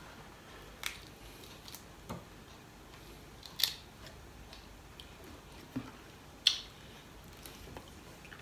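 Scattered sharp clicks and crackles of steamed prawns being peeled by hand and eaten, about half a dozen in all, the loudest about three and a half and six and a half seconds in.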